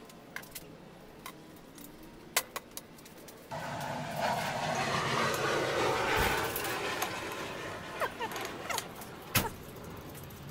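Steel parts and hand tools being handled during assembly: scattered light metallic clicks and clinks. A few seconds in, a louder stretch of rustling, scraping handling noise lasts several seconds. More clicks and a sharp knock come near the end.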